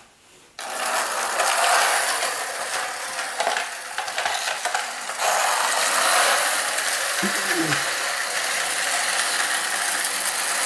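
Clockwork motors of Marx Motorway wind-up toy cars running, a steady whirring of gears that starts about half a second in. The cars have little power: their mainsprings are driving them weakly.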